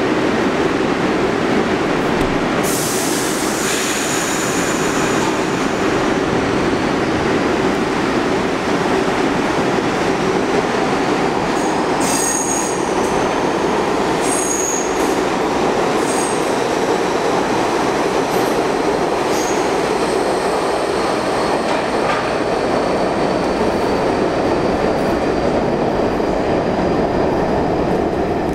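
NYC Subway 42nd Street Shuttle train of R62A cars pulling out and running past the platform: a loud, steady rumble of wheels on rail. Brief high wheel squeals come about three seconds in and several more around the middle.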